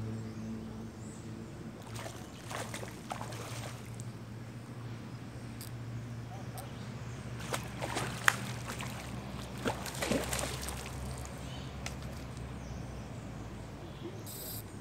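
A hooked catfish splashing and thrashing at the water's surface in several bursts as it is reeled in close to the bank, the strongest around the middle, over a steady low hum.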